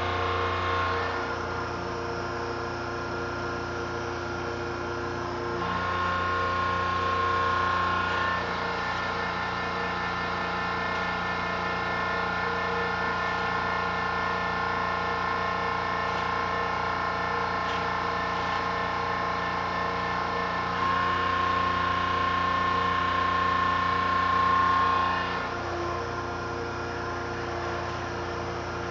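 Hydraulic power unit of a student-built hydraulic crane running steadily, its electric motor and pump giving a hum with several fixed tones. The note shifts and grows louder for a few seconds twice, about six seconds in and again about twenty-one seconds in, as the crane's boom is raised.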